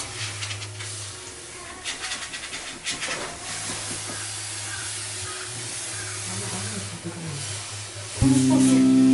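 Steam cleaner hissing steadily with a low hum from its unit and a few clicks and knocks, as steam is worked over old wooden beams. Background music comes in suddenly near the end.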